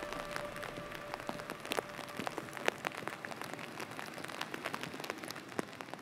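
Irregular pattering of drops of rain or wet snow, many separate sharp ticks over a faint hiss, slowly growing quieter. Background music fades out in the first second or so.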